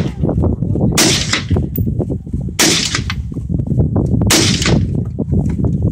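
Three pistol shots, about a second and a half apart, each with a short echoing tail, over steady wind buffeting the microphone.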